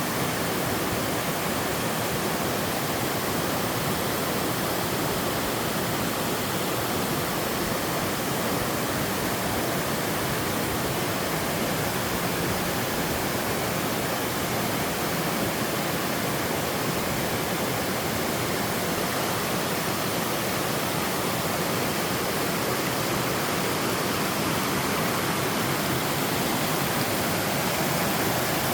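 Three-tiered sliding waterfall in a mountain stream, water spilling down sloping rock in a steady, unbroken wash of noise.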